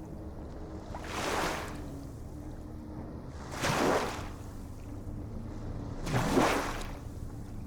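Small waves washing in, three surges about two and a half seconds apart, each swelling and fading within a second, over a faint low steady hum.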